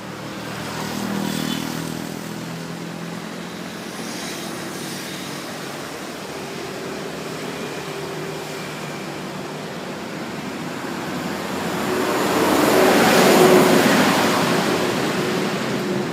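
A motor vehicle passing over a steady outdoor hiss of surf and wind. The engine drone grows louder from about eleven seconds in, is loudest around thirteen seconds, then fades.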